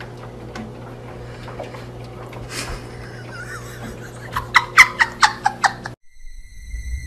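A person giggling in a quick run of short bursts about four and a half seconds in, over a steady low hum.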